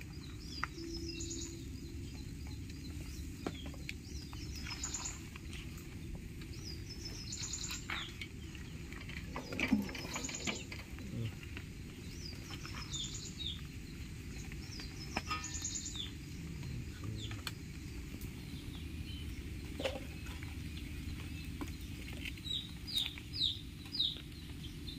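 Small birds chirping in short, high, falling calls scattered throughout, with a quick run of chirps near the end, over a steady low background rumble. A few clicks and knocks, the loudest about ten seconds in.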